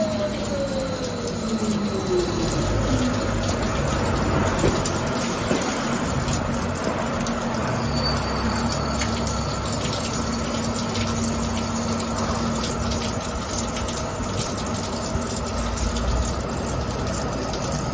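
CNC lathe cutting a metal part under flood coolant: coolant spray hissing over the running spindle and cut. A motor whine falls in pitch over the first three seconds, then settles into a steady hum.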